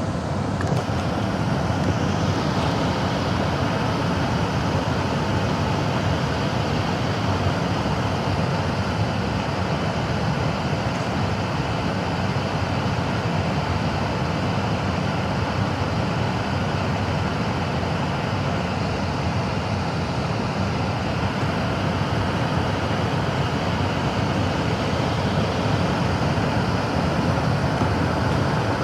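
Comfortmaker gas furnace running, a steady rushing noise of burner and blower air.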